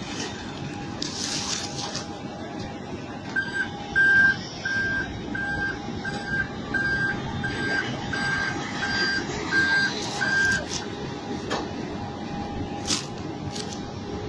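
Reversing alarm of an airport ground service vehicle beeping about a dozen times, roughly one and a half beeps a second. The beeps start a few seconds in and stop a few seconds before the end, over steady apron noise of vehicles and engines.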